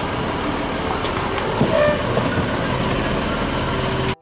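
Rear-loader garbage truck running its hydraulic packer cycle, with the diesel engine running: a loud, steady mechanical noise with a few short squealing tones about halfway through. It cuts off suddenly just before the end.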